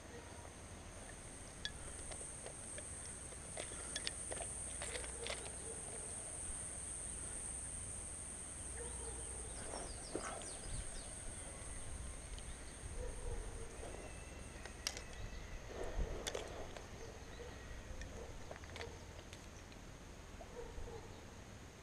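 Insects droning outdoors: a steady high-pitched buzz that stops about two-thirds of the way through. Scattered light clicks and knocks and a few faint short calls are heard throughout.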